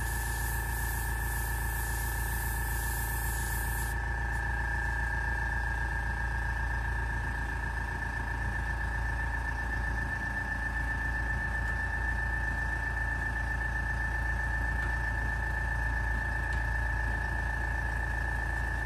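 Badger Sotar 2020 airbrush hissing as it sprays paint, stopping abruptly about four seconds in. Under it a steady hum with a high whine runs throughout.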